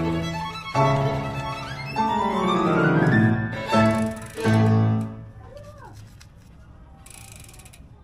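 Background music of sustained string-like notes, with a long downward slide in the middle, stopping about five seconds in. Then only faint sounds remain, with a short hiss near the end.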